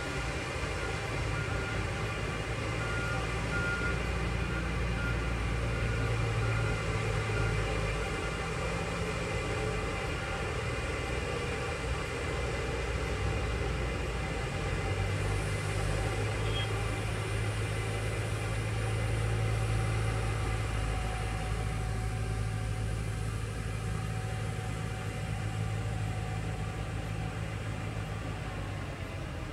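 Steady engine drone of road traffic and road-work machinery, with cars and trucks passing on the road. The low hum grows stronger for a stretch from about halfway through.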